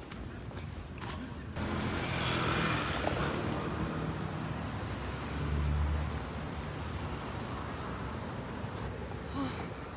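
Street traffic: cars running along the road in a steady wash of noise, one passing a little louder about five and a half seconds in. Before that, for about the first second and a half, quieter footsteps on stairs.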